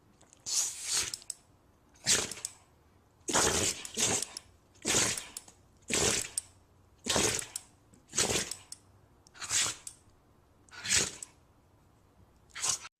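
A run of about eleven short, hissy sneezes, roughly one a second.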